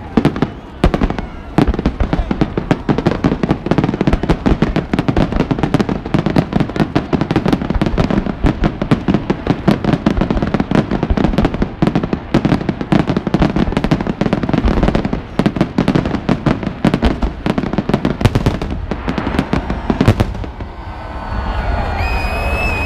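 Fireworks display: a dense, continuous barrage of bangs and pops, many a second. Near the end the barrage eases and a high whistle rises over it.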